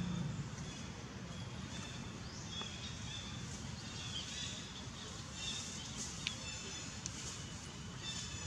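Forest ambience: short, high bird chirps repeating over a steady low background rumble, with one sharp tick about six seconds in.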